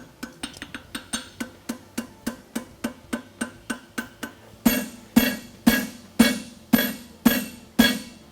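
Farrier's hammer striking a fuller on a steel horseshoe over the anvil, fullering the crease around the heel. It starts with quick light taps about four a second, then about halfway changes to heavier blows about two a second, each with a ringing metallic note.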